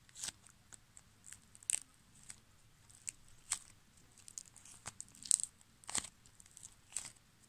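Hands crushing and pulling apart a homemade pink 'clay cracking' figure made without clay: its dried crust gives irregular small crackles and crunches as it breaks over the soft filling, with a few louder cracks in the second half.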